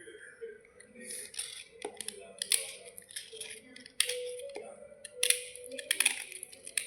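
Crisp clicks and short scratchy rustles at an irregular pace, from white slate bars being handled and cleaned, with a faint steady hum underneath.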